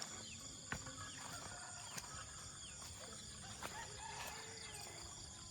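Faint early-morning outdoor ambience: insects chirping steadily, with a rooster crowing faintly around the middle and a few scattered clicks from footsteps on the path.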